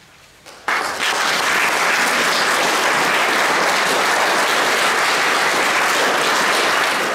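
Audience applauding, breaking out suddenly under a second in and holding steady.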